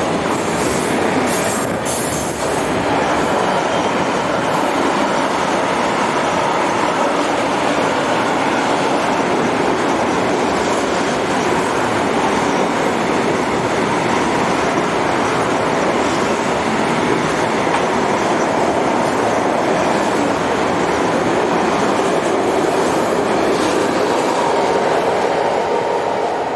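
Rolling-highway freight train, lorries carried on low-floor wagons, running past at close range: a loud, steady rolling noise of wheels on rail, with a few clicks near the start.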